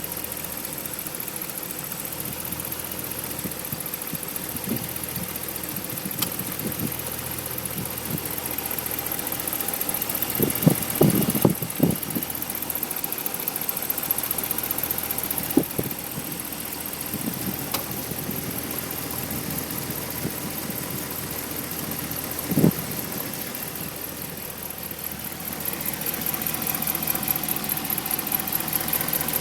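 A 2010 Ram 1500's 5.7 Hemi V8 idling with a fast, even ticking whose cause is unknown. A few short, loud knocks stand out, a cluster of them about a third of the way in and single ones later.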